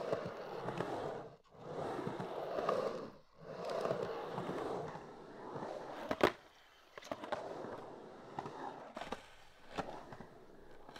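Skateboard wheels rolling over concrete in three passes, each swelling and fading, then a sharp clack of the board hitting the ground about six seconds in. Near the end, faint small scrapes and clicks of a hand gouge cutting into laminated wood.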